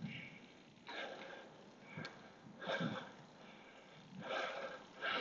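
A cyclist breathing hard from climbing a steep hill: a few short, soft breaths about a second apart.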